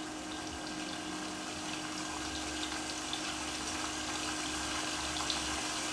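Recording of a flowing stream played back from a CD: a steady rush of running water, with a faint steady hum underneath.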